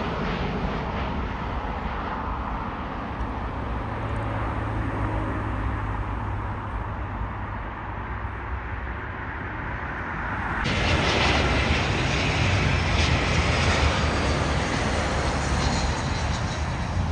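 Jet airliner engine noise slowly fading as the plane moves away. About ten seconds in, a sudden louder rushing noise takes over.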